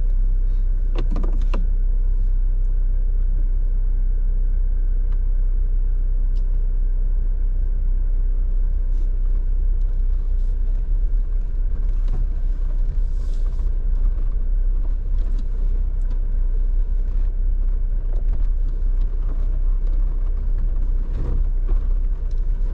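Jeep driving slowly along a dirt trail, a steady low rumble from the engine and tyres heard inside the cab, with occasional light knocks and rattles in the second half.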